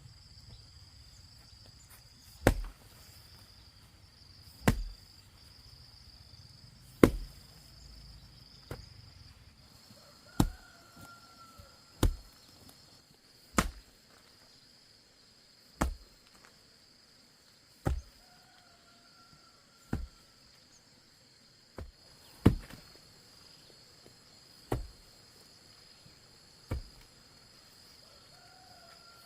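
A blade chopping through sugarcane stalks: about a dozen sharp chops, roughly one every two seconds, over a steady high buzz of insects.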